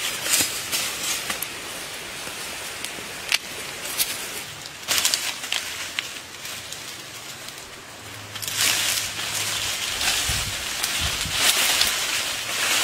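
Leaves and twigs rustling and crackling as someone pushes through dense undergrowth, with scattered sharp snaps; the brushing gets louder and denser in the second half.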